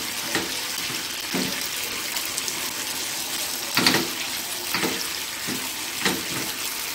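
Tteokbokki rice cakes in sauce sizzling and bubbling in a frying pan, a steady hiss. A wooden spatula stirs them, scraping and knocking against the pan about five times.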